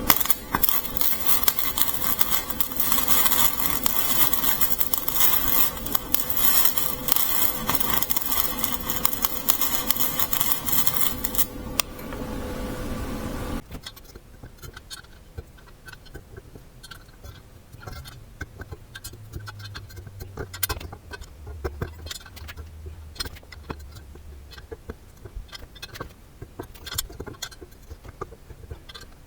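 Arc welding a nut onto a broken exhaust manifold stud: a loud, steady crackling for about eleven seconds, which stops. After that come quieter scattered clicks and taps of metal handling.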